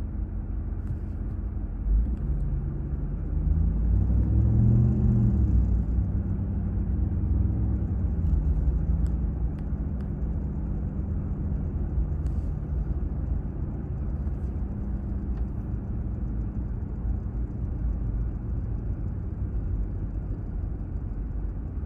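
Ram TRX pickup heard from inside the cab while driving: steady low engine and road rumble. The engine note rises and then falls about three to six seconds in.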